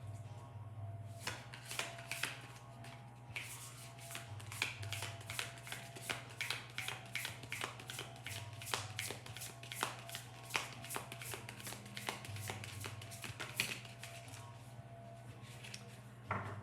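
A deck of tarot cards being shuffled by hand: a long run of quick card clicks and flicks that tails off near the end.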